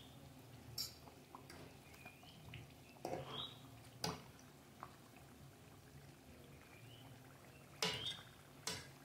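Hot oil sizzling quietly in a frying pan as rounds of banana pancake dough are dropped in by hand, with several short sharp bursts of sizzle as pieces go in, the loudest about eight seconds in.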